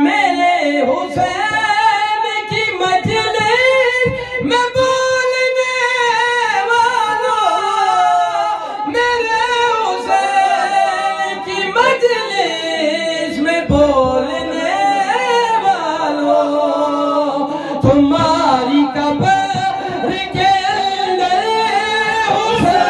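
A zakir's sung recitation: one man's voice chanting a melody without accompaniment, with long held notes that bend and waver in pitch.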